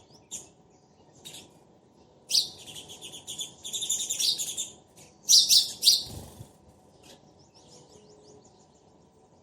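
Sparrows chirping: a couple of short chirps, then about three seconds of dense, rapid chirping and a loud burst near six seconds, trailing off into faint quick chirps.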